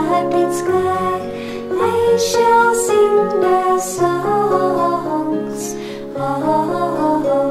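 A women's vocal group singing a slow devotional song, holding long notes over sustained instrumental accompaniment.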